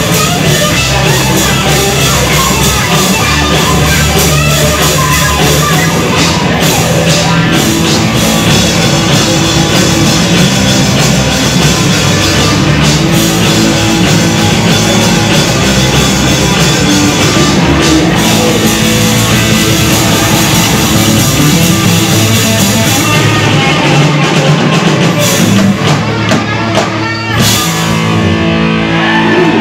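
A live heavy band playing loud: distorted electric guitar, bass and a drum kit with crashing cymbals. The playing thins out near the end.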